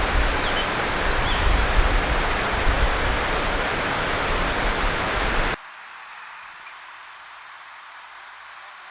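Loud, steady rushing water, with a few faint high bird notes about a second in. About five and a half seconds in it cuts off suddenly to a faint hiss.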